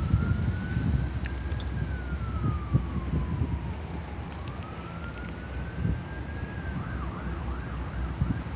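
Emergency-vehicle siren sounding a slow wail, rising and falling twice, then switching to a fast yelp about seven seconds in, over a low rumbling noise.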